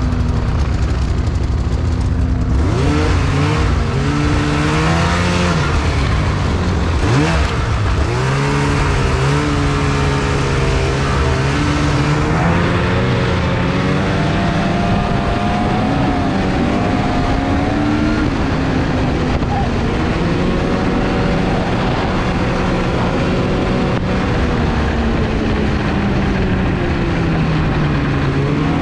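Snowmobile engine accelerating away about two to three seconds in, then running along a snowy trail, its pitch rising and falling with the throttle.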